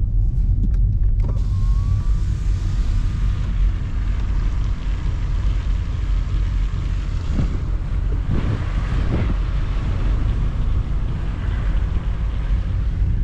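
Car driving, heard from inside the cabin: a steady low engine and road rumble with a hiss of tyre and wind noise that swells about a second in.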